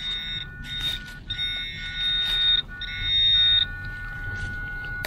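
Handheld metal-detector pinpointer sounding a high-pitched continuous alarm tone in four stretches, the longest over a second, as it is worked over a metal target in the dig hole. A fainter steady lower tone runs beneath, with a few short scrapes of soil.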